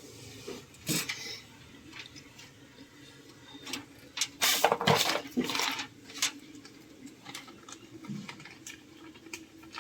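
Scattered light clinks and knocks of hard objects being handled, with a louder flurry of rattling strokes about four to six seconds in.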